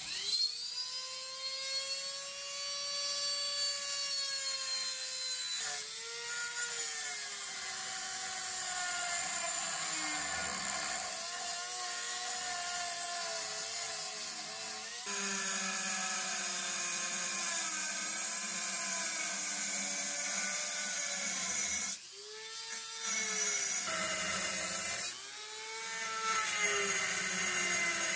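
A high-speed rotary tool cutting metal: a high-pitched whine that sags and recovers in pitch as the wheel bites, over a steady abrasive hiss. The tool stops briefly twice near the end and starts again.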